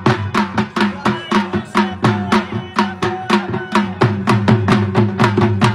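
Pashto attan dance music: a dhol drum beating a fast, even rhythm of about four to five strokes a second over a held melodic drone.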